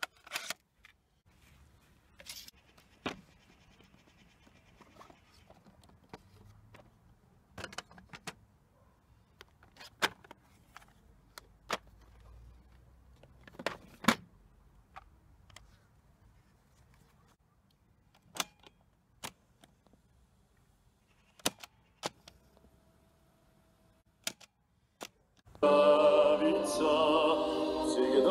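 Sharp plastic clicks and clatter from cassettes and a small Sanyo cassette radio being handled: the tape door opened, a cassette swapped and keys pressed. A little over 25 seconds in, opera music starts playing loudly from the cassette radio's speakers.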